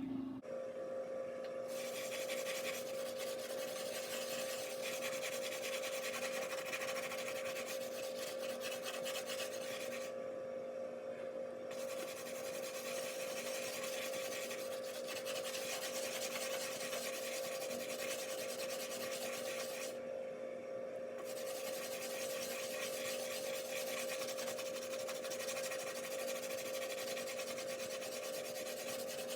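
A dishwasher tablet being scrubbed back and forth on oven door glass: a steady gritty rubbing that stops briefly twice, about ten and twenty seconds in. A steady hum runs underneath.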